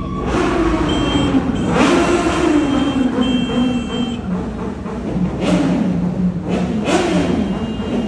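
Sport motorcycle engine being revved while standing still inside a road tunnel: the revs are held up and sink slowly, then it idles with short, sharp throttle blips about five and a half and seven seconds in.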